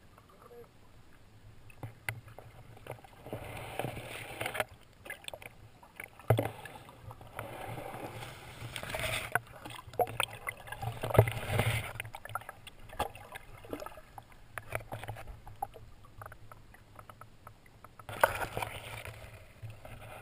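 Water noise heard through a camera held underwater: several swells of muffled rushing and sloshing water, with scattered knocks and clicks.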